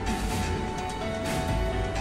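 Background music with held notes, its melody shifting about a second in.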